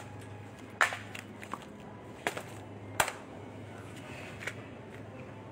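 Handling noise in a supermarket aisle: a few scattered sharp clicks and knocks, the loudest about a second in and again about three seconds in, over a steady low hum.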